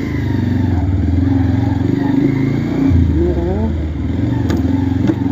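Bajaj Pulsar NS200 motorcycle's single-cylinder engine running steadily under way, its pitch shifting about halfway through, with a couple of sharp clicks near the end.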